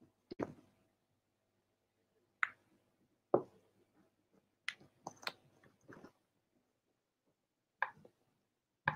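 About nine faint, short clicks spaced irregularly, with near silence between them.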